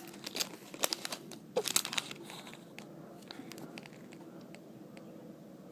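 Plastic packaging crinkling as it is handled, in short irregular crackles through the first two seconds or so, then a few faint ticks and a quieter stretch.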